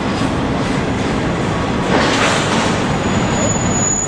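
Double-stack intermodal container cars rolling past on curved track: a steady rumble and rattle of steel wheels on the rails, swelling briefly about two seconds in. A thin, steady high tone comes in about three seconds in.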